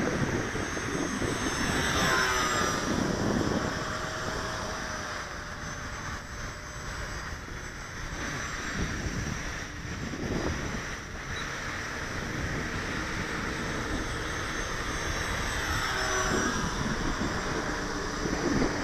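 Twin electric motors and propellers of a Durafly Cessna 310 RC model plane whining in flight. The pitch falls as it passes close about two seconds in and again near sixteen seconds.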